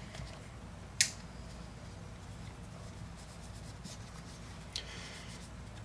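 A cloth patch wiping and rubbing solvent off a Ruger SR9c pistol frame, making faint scratchy scuffing. A sharp click comes about a second in.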